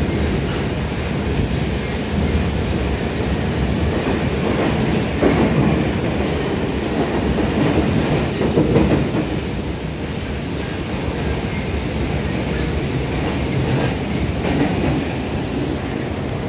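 Old Toshiba-built Cairo Metro Line 1 train car running along the track, heard from inside the carriage: a steady, loud rumble of wheels on rails, swelling louder about five and nine seconds in.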